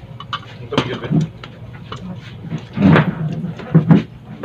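Table sounds of a shared meal: scattered light clicks and knocks of spoons and plates, with a few short low murmurs.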